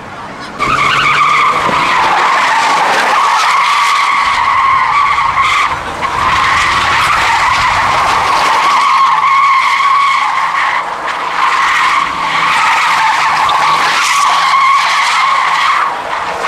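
3.2-litre V6 Vauxhall Omega limousine drifting in circles, its rear tyres screeching loudly and steadily under the running engine. The screech starts suddenly about half a second in and briefly dips three times, near six, eleven and sixteen seconds in.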